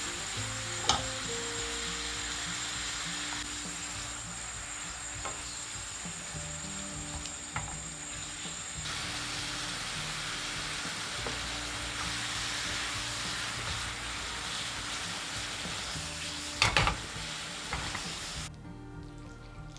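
Tofu noodles, bacon and vegetables sizzling in a hot non-stick wok as they are stir-fried with a wooden spatula. The spatula knocks against the pan a few times, loudest near the end, and the sizzling stops just before the end.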